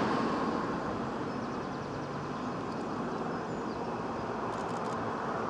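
Vivarail Class 230 diesel-electric train approaching along the track, a steady drone and rumble of its diesel engines and running gear. A few faint high ticks near the end.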